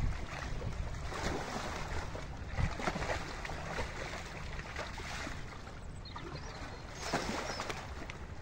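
White rhinoceros rolling in a shallow mud wallow: wet mud sloshing and splashing in irregular bursts, with wind rumbling on the microphone.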